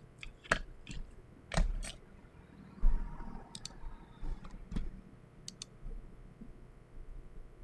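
Scattered single keystroke clicks on a KBDfans Pebble mechanical keyboard with JWK FFF switches and SA-profile keycaps, irregular and about a second apart rather than steady typing, with one duller, deeper knock about three seconds in.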